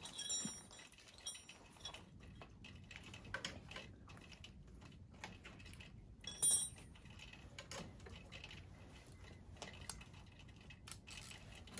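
Small loose metal hardware and tools clinking and ticking while being handled. Two short metallic clinks ring out, one just after the start and a louder one a little past halfway, among faint scattered clicks.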